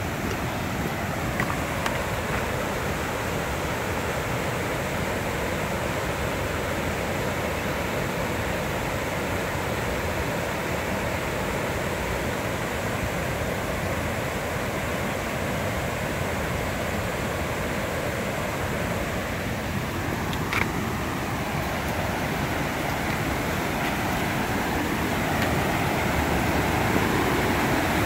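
Steady rush of a creek's cascades and small waterfalls, water pouring over rock ledges, growing slightly louder over the last few seconds. One short faint click about two-thirds of the way through.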